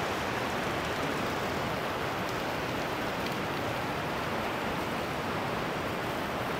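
Steady rush of a river pouring over small cascades and rapids in a rocky canyon.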